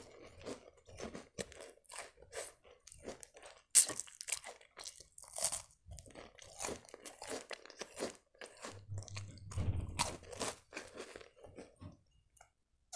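Close-up crunching and chewing of crisp, cream-filled sandwich biscuits: a steady run of sharp crunches from bites and chewing, dying away near the end.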